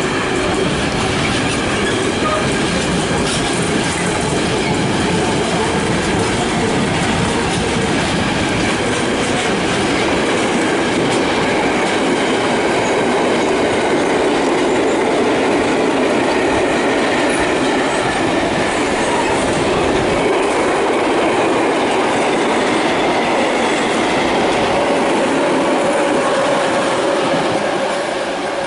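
A train passing close by: steady rolling wheel-on-rail noise with clickety-clack, easing off near the end.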